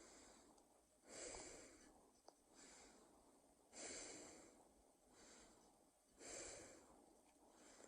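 Faint, slow, heavy breathing close to the microphone. There are three strong breaths about every two and a half seconds, each followed by a softer one.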